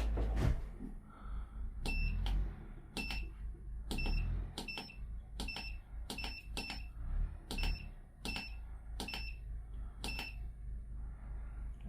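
Short electronic beeps, each starting with a click, repeated about a dozen times at uneven intervals, over a steady low hum.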